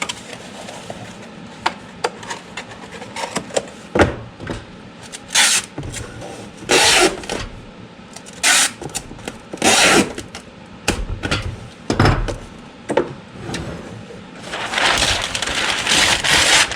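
Packing noises: metal sockets knocking and clinking as they are handled and set down, with short bursts of paper rustling and a longer stretch of crinkling kraft paper near the end as wrapping paper is pulled out.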